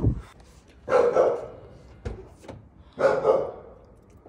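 A brief low thump right at the start, then a dog barks twice, about two seconds apart.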